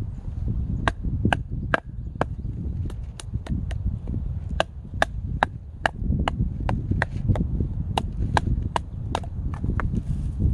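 Firewood being cut by hand with a blade: a run of short, sharp strikes on wood, unevenly spaced, about two to three a second.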